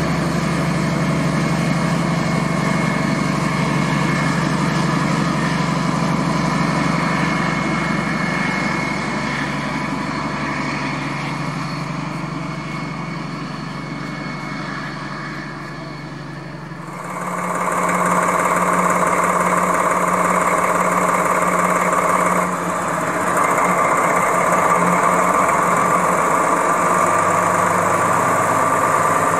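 DB class 218 diesel-hydraulic locomotive's MTU 12-cylinder TB11 engine running steadily at a standstill, its sound easing off gradually. About halfway through it cuts abruptly to another recording of the engine running steadily, louder, with a high whine over it.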